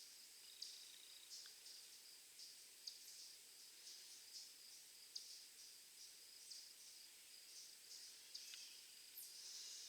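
Near silence: quiet woodland ambience with faint, short high-pitched chirps about one or two a second.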